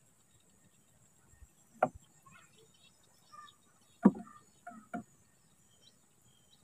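A few sharp knocks on the wooden hull of a small river boat, four in all, the loudest about four seconds in. Faint high chirping carries on in the background.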